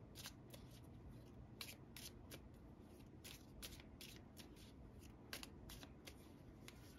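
Near silence with faint, irregular clicks of tarot cards being handled, two or three a second.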